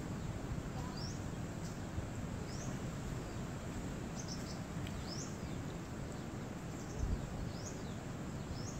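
A bird repeats a short, high chirp roughly once a second over a steady low background rumble. A brief low thump comes about seven seconds in.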